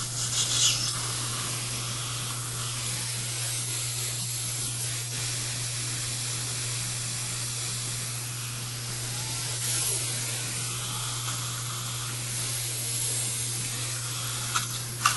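Steady hiss over a constant low hum, with short louder hissing spurts about half a second in and again near ten seconds in.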